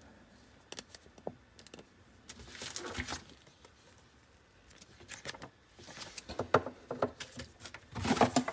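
Hands handling a paper booklet and small objects on a desk: paper rustling with scattered light clicks and knocks, getting busier and louder toward the end.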